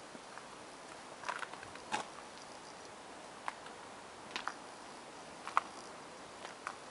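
Slow footsteps on a tarmac driveway: soft clicks and scuffs about once a second, some in quick pairs, over a faint hiss.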